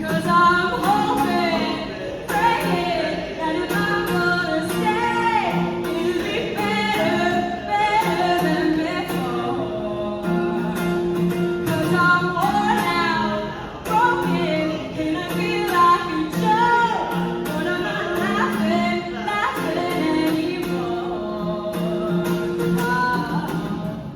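A woman singing a melody over a strummed acoustic guitar, in a live performance.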